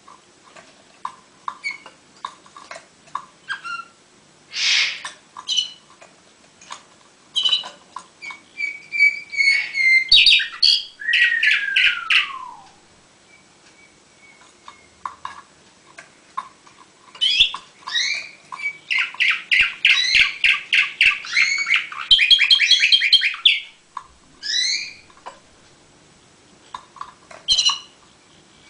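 Orpheus song canary singing: scattered short chirps at first, then a burst of fast trills with a long falling whistled note about a third of the way in. After a pause, a long run of rapid repeated-note trills follows in the second half, with a few separate notes near the end.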